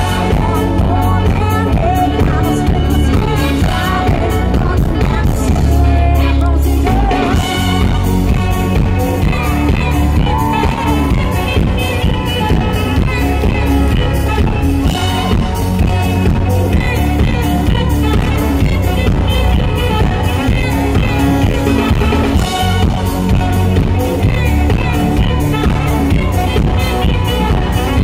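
Live band music with a steady dance beat, horns and a woman singing, recorded loud from the audience.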